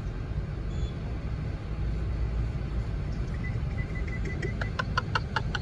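Steady low rumble of vehicle engines and traffic heard from inside a car's cabin. Near the end a quick run of light ticks comes in, about five a second.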